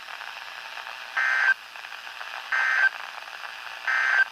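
NOAA Weather Radio end-of-message SAME data bursts marking the close of the Required Weekly Test. There are three short bursts about a second and a half apart, played through the small speaker of a La Crosse S83301 weather radio over steady static hiss.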